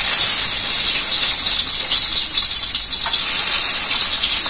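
Two peeled boiled eggs frying in hot oil in a steel karahi: a loud, steady sizzle, with a single pop about three seconds in.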